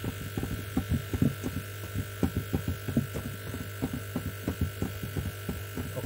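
Fingers pressing and working a patch of M-seal epoxy putty onto the plastic inner wall of an old fridge, giving soft irregular thumps a few times a second over a steady low hum.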